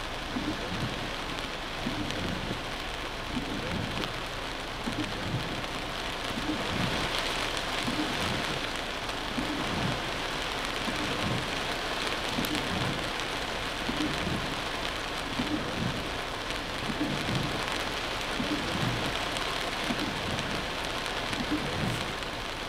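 Heavy rain falling on a car's roof and windshield, a steady hiss, heard from inside the stopped car. Under it runs a soft, regular low pulse, about one every three-quarters of a second.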